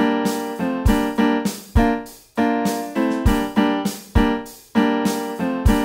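Background piano music: chords struck in a steady rhythm, each ringing out and fading before the next.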